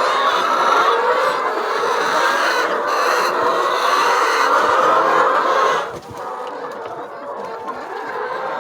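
A flock of laying hens clucking together in a dense, steady chatter. It drops to a quieter level suddenly about six seconds in.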